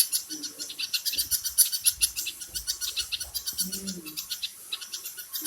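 A flock of small birds chirping rapidly and continuously, many short high-pitched notes overlapping, with a low call from another bird about four seconds in.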